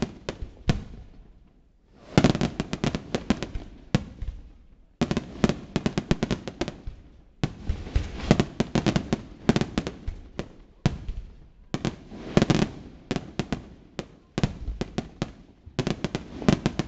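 Aerial fireworks display: volleys of rapid sharp bangs and crackles from bursting shells, each volley lasting a couple of seconds, with brief pauses between them.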